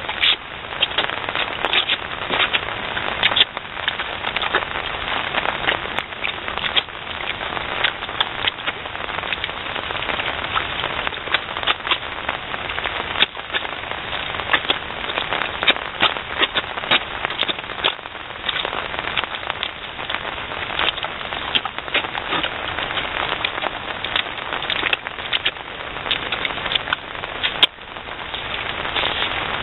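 Steady rain falling, with many sharp crackling drop impacts close by, scattered through a dense patter.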